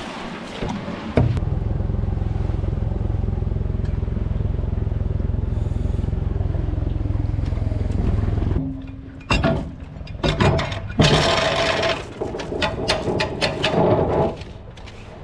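A Honda outboard motor starts about a second in, runs steadily at low revs and cuts off after about seven seconds. It is followed by sharp knocks and a stretch of clattering rattles.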